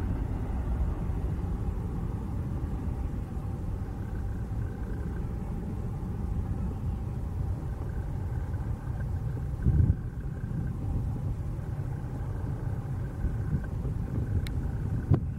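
Boeing 737-700's CFM56-7B turbofan engines giving a steady low rumble as the airliner climbs away after takeoff, easing slightly as it recedes. A brief thump about ten seconds in.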